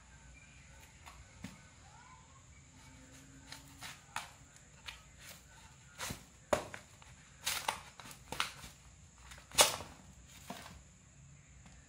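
A large kitchen knife cutting through a raw pumpkin, the blade cracking through the hard rind and knocking on a wooden cutting board. The knocks come irregularly, a few at first, then more often and louder in the second half, with the loudest knock near the end.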